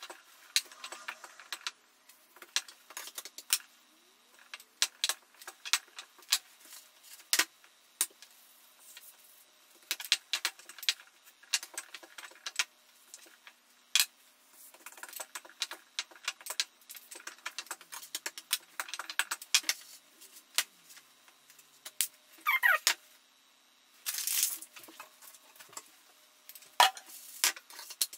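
Kitchen handling sounds played fast: a wooden rolling pin knocking and rolling on a floured stone worktop while tortilla dough is rolled out, with a frying pan and spatula clattering, heard as quick scattered clicks and knocks. A short falling squeak comes a little past the middle.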